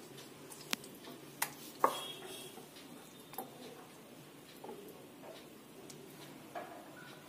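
Light, scattered clicks and taps of fish and fingers against a glass bowl and glass plate while fish pieces are coated by hand in thick batter, about half a dozen in all, the loudest about two seconds in.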